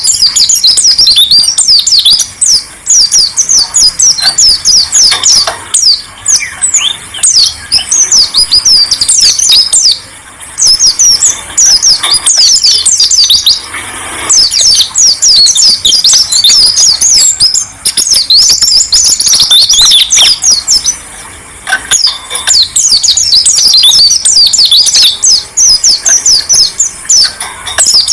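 Songbirds from a masteran recording of orange-headed thrush, white-eye and green leafbird singing a loud, dense stream of rapid, high chirps and quick downward-sliding notes, broken only by a few short pauses.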